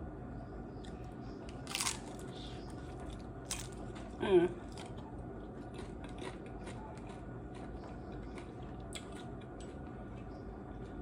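Close-up crunching and chewing of a crisp fried corn tostada or taco shell: many small crackles, with a louder crunch about two seconds in. A brief hummed voice sound comes about four seconds in, over a steady low hum.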